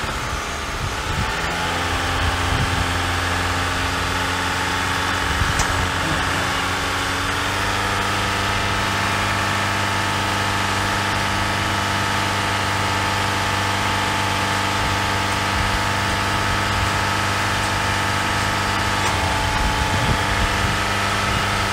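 Car engine running steadily at a raised speed while hooked by jumper cables to a semi truck's dead batteries, charging them; its pitch steps up slightly about a second and a half in.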